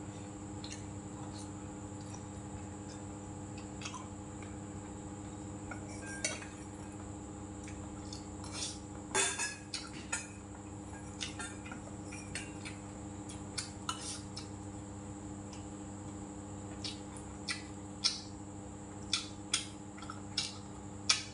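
Chopsticks and a spoon clinking now and then against a stainless-steel bowl during eating, the clinks scattered at first and coming more often in the second half, over a steady low hum.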